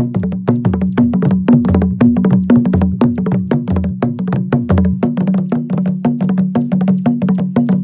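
Hand drums played in a fast, driving Acholi-style rhythm of sharp slaps and pitched tones, with a deeper drum part that drops out about five seconds in.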